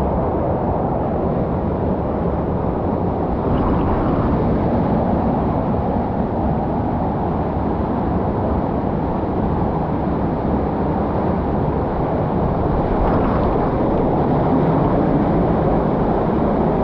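Waterfall roaring close by: a steady, loud rush of falling water that stays even throughout.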